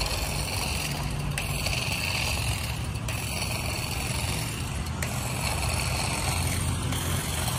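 Small cordless battery grass shears with the short cutting blade, running steadily with a high whine as they cut through grass and weeds.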